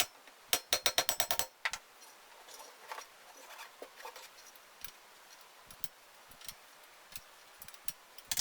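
A quick run of about ten sharp clicks in the first second and a half, then scattered single light clicks and taps.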